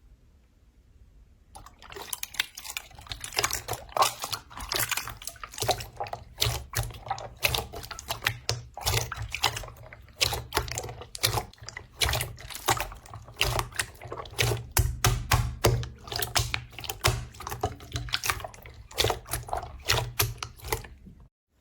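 Slime being squeezed and poked by hand, giving a fast, irregular run of wet clicks and pops. It starts about a second and a half in and stops abruptly near the end.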